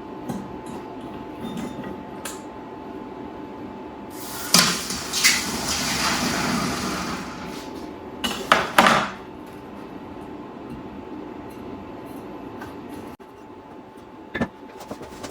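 Metal clanking and knocking as crucible, tongs and mold are handled during a small copper pour, with a loud hissing rush for about three seconds partway through and a cluster of sharp clanks just after it.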